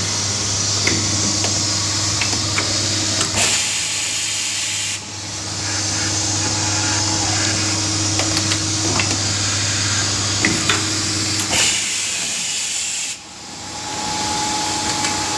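Automatic rotary transfer machine for drilling, tapping and milling, running through its cycle. There is a steady hiss over a low hum, with spindle motor tones coming and going and scattered clicks. The hiss cuts out briefly twice, about five seconds in and again near the end, then builds back up.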